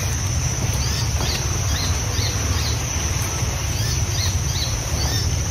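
Field ambience: a steady high-pitched insect drone, with short bird chirps at about two a second over it, and a low rumble underneath.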